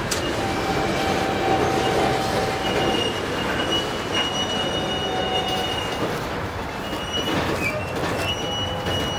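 Freight train of covered hopper cars rolling past at close range: a steady rumble of steel wheels on rail. High-pitched wheel squeal comes and goes over it, a lower squeal in the first few seconds and higher ones from about three seconds in.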